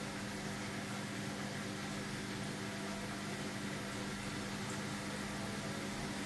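Hoover washing machine on its final spin at 500 rpm: a steady motor hum as the drum turns at a constant speed.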